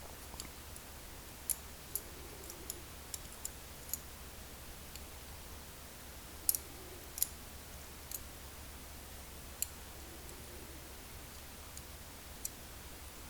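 Irregular small metal clicks from an American Lock 1106 padlock's pin-tumbler springs and pins being picked out of the lock during disassembly. The two loudest clicks come about six and a half and seven seconds in.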